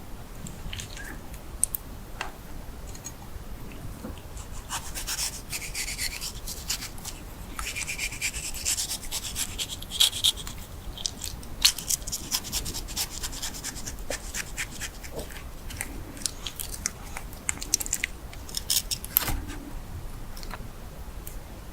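Crackling, crunching food sounds with many sharp clicks, busiest through the middle stretch and thinning out near the end.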